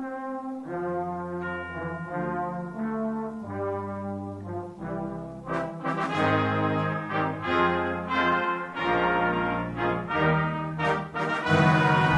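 Brass-led band music: held chords moving about once a second, turning busier with quicker notes about halfway through.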